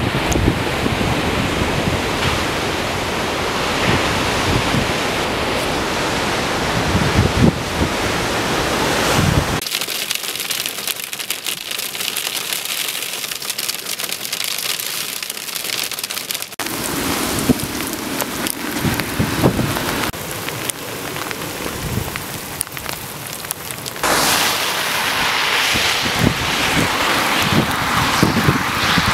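Wind buffeting the microphone over surf breaking on rocks. About ten seconds in, this gives way to hail striking a car, a dense stream of fine sharp ticks without the low rush. Heavier wind and storm noise builds again in the last few seconds.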